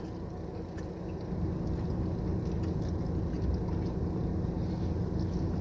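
A motor vehicle's engine running with a steady low rumble, growing a little louder about a second in.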